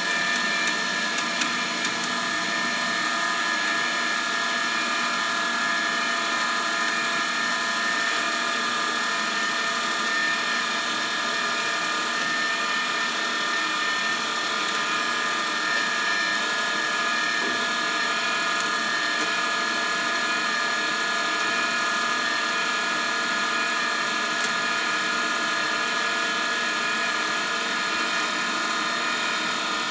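Lincoln Electric Weld-pak 140 HD's wire feed motor and drive rolls running with the gun trigger held, pushing 0.035 flux-core wire through the gun at a wire speed of about 4 to 5: a steady whine.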